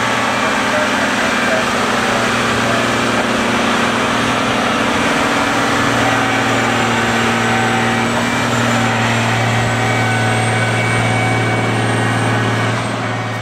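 Diesel engine of a rail-mounted maintenance-of-way machine running steadily as it rolls along the track, a constant low hum under a steady hiss.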